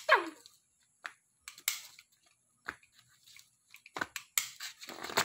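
Plastic toy pistols clicking as the triggers are pulled: a string of separate sharp clicks, with a short falling squeal right at the start and a quicker cluster of clicks about four seconds in.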